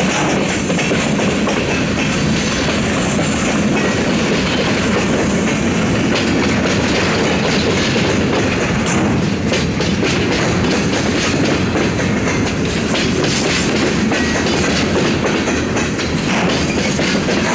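Empty bulkhead flatcars of a freight train rolling past at close range, their steel wheels clacking steadily over the rail joints and the grade crossing. The sound stays at an even level with no break.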